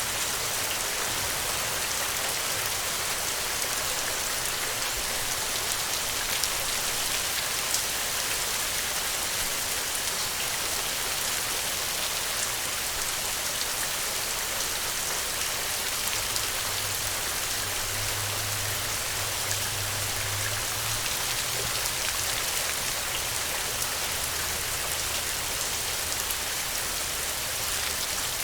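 Steady rain falling on the ground: an even hiss of many drops, with small individual drop ticks scattered through it.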